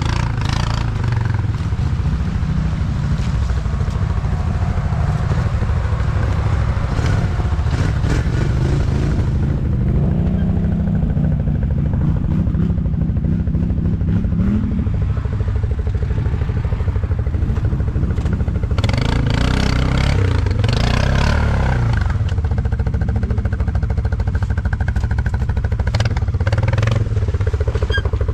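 ATV engines running hard on a dirt track, the pitch climbing as the throttle opens, twice, with rattling from the machines.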